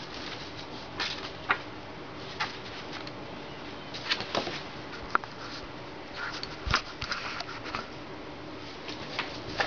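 Handling noises: paper rustling and scattered soft clicks and knocks as papers are picked up and moved, with a low thump about two-thirds of the way through as the camera is handled. A faint steady hum runs underneath.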